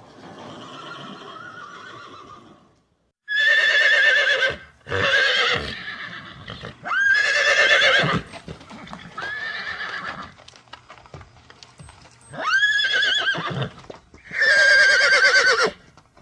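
Horse whinnying over and over: about six loud, high, quavering neighs about a second long each, some opening with a quick upward sweep in pitch. A softer, rougher sound comes before them.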